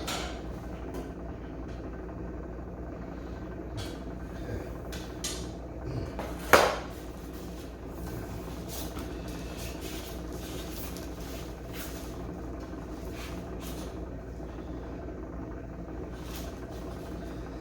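Small clicks and clinks of a wrench and cable being worked onto a generator's battery terminal, with one loud, sharp clank about six and a half seconds in, over a steady low hum.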